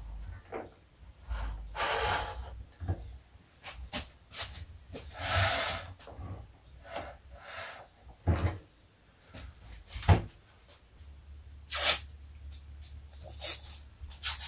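Handling noises on a workbench as scales are set under a model aircraft's wheels: scattered small knocks and clicks, with two short rustling scrapes about two and five and a half seconds in.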